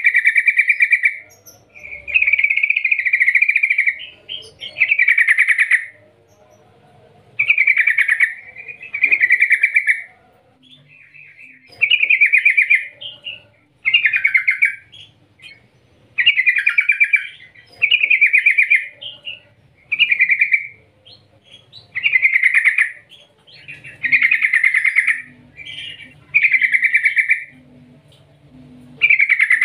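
Yellow-vented bulbul singing: a series of loud, bubbling, rolling phrases of about a second each, repeated every one to two seconds with short pauses between.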